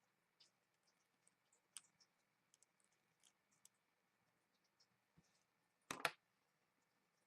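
Faint small clicks and ticks of a precision screwdriver and tiny screws being worked out of an iPhone 5's metal shield plate, with one louder double click about six seconds in.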